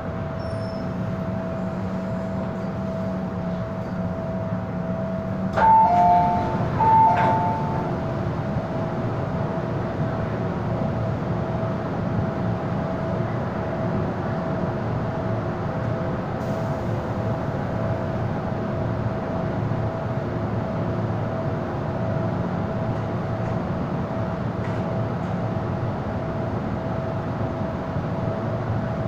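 MTR M-Train subway car running between stations, heard from inside the car: a steady low rumble with a constant high hum. About six seconds in, a short two-note electronic tone sounds twice in quick succession.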